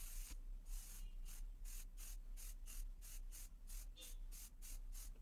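Aerosol spray-paint can hissing as black paint goes onto a motorcycle fuel tank, the faint spray coming in quick pulses of about three to four a second.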